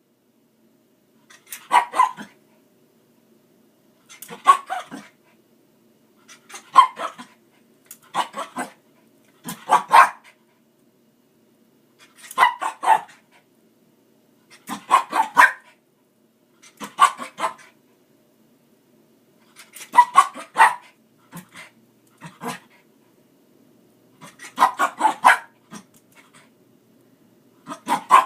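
Dog barking in quick bursts of a few sharp barks, a burst about every two to three seconds, while it snaps at dust. A faint low hum sits under the gaps.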